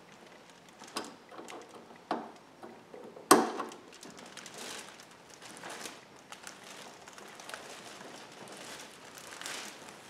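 Hands working at the metal bracket and hydraulic line fittings of a Mercedes R171 roof's front lock cylinder: a few scattered clicks and knocks of small metal parts, the sharpest about three seconds in, between soft handling rustle.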